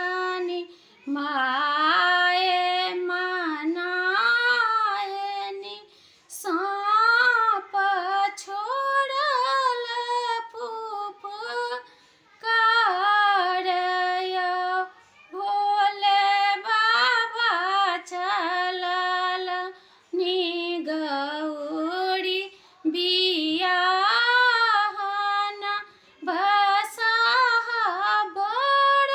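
A woman singing a Maithili Maheshwani, a devotional song to Shiva in the wedding-song style, solo and unaccompanied. She sings in melodic phrases of a few seconds each, with brief pauses for breath between them.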